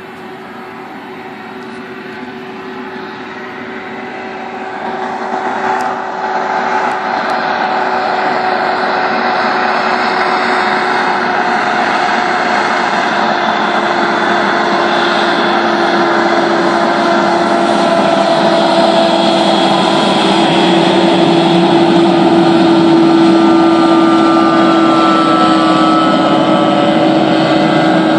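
Hovercraft rescue boat's engine and propeller fan droning steadily as the craft runs across the water. It grows louder over the first several seconds as the craft approaches, then stays loud.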